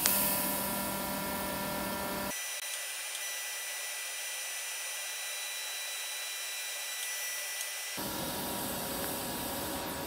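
Pulsed TIG welding arc from a BlueArc 200STI DC inverter welder set to a high pulse rate: a steady hiss with thin, high-pitched tones, opening with a sharp click as the arc strikes.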